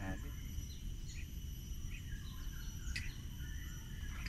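Riverside ambience: scattered short bird chirps over a steady high-pitched insect drone and a low background rumble.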